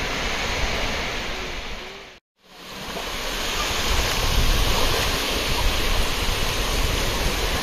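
Steady rush of sea surf breaking and washing on the beach. It cuts out for a moment about two seconds in, then fades back up.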